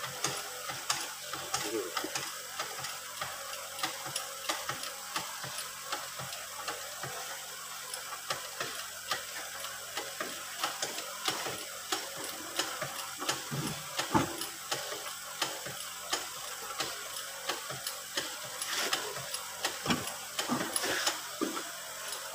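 Irregular light clicks and knocks of metal tools and parts being handled at a John Deere tractor's rear axle hub, several a second and uneven, over a faint steady hiss.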